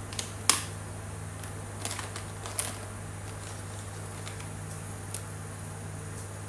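Plastic marker pens being handled as one is put down and another picked up: a few sharp clicks and light clatter, the loudest about half a second in and a short cluster around two seconds, then faint ticks. A steady low hum runs underneath.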